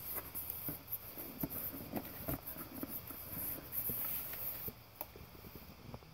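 Foam packing sheet crinkling and rustling as it is pulled out of a cardboard box, with irregular small crackles and light knocks of handling that ease off near the end.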